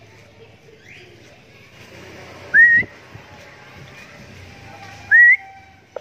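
A person whistling twice, about two and a half seconds apart, to call a pet Javan myna back. Each whistle is short and loud, and rises with a wiggle.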